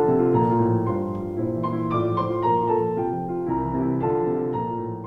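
Background keyboard music, with several notes sounding together, getting quieter toward the end.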